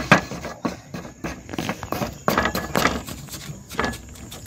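Wooden pestle pounding red chillies in a mortar: repeated thuds, about two to three a second, unevenly spaced.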